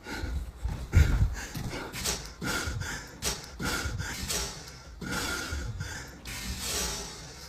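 A man panting heavily, rapid rough breaths in and out, out of breath after fleeing in fright, with a thump about a second in.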